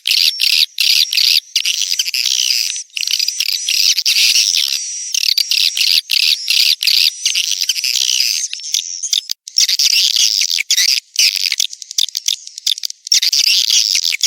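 Swiftlets twittering: a dense, continuous stream of rapid high-pitched chirps with many brief breaks. It is a 'birahi' (mating-call) swiftlet lure recording, the kind played to draw swiftlets into a nesting house.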